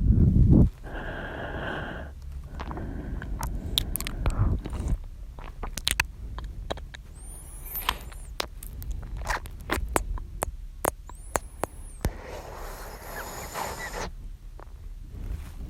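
Close-miked male ASMR mouth sounds. A strong breath into the microphone cuts off about half a second in, then comes a long run of wet mouth clicks and pops with two brief high squeaks, and another breath near the end.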